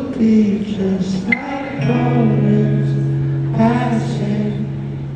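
Male singer performing live, a slow, wavering vocal line. About two seconds in a held low chord comes in and sustains under the voice.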